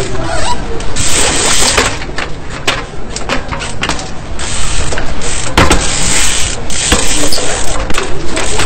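Trials mountain bike hopping onto a bench and a concrete wall: sharp knocks of tyres and frame landing, with the rear hub's freewheel ticking, over steady noise.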